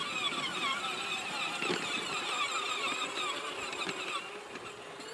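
Peg Perego John Deere Ground Force electric ride-on tractor running across grass, its electric drive motors and gearbox giving a high whine whose pitch wavers constantly. The whine fades after about four seconds as the tractor drives away.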